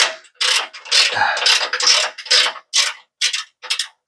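Ratchet wrench clicking in short repeated strokes, about two a second, backing a bolt out of the van's suspension.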